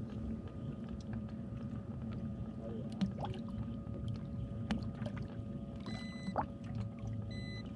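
A bass boat's pump runs with a steady hum while water pours and gurgles. Light knocks come on the boat about three, four and a half, and six seconds in, and two short electronic beeps sound near the end.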